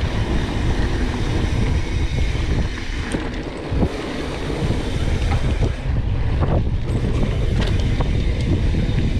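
Wind buffeting the microphone and the rumble of mountain bike tyres rolling over a dirt trail, with scattered knocks and rattles from the bike over bumps.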